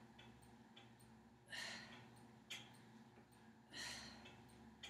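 A person's forceful breath exhalations, twice about two seconds apart, breathing out on each dumbbell lift during a side-plank exercise, over a faint steady hum.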